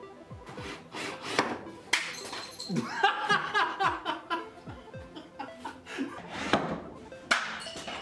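Two men laughing heartily about three seconds in, over background music.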